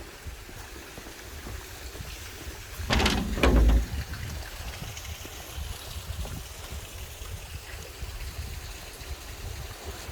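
Sea water washing against the shore: a steady rushing with a louder surge about three seconds in. Low wind rumble on the microphone runs underneath.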